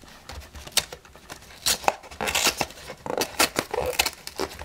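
A small cardboard blind box and its white card insert handled by hand while it is opened: irregular clicks and short scraping, rustling sounds of card sliding against card.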